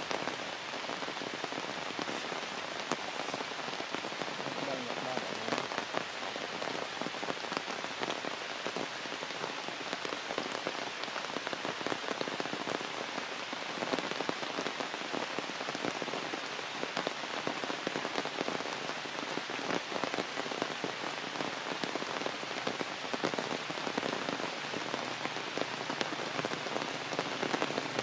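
Steady rain falling through forest foliage: an even hiss with many separate drops ticking on the leaves.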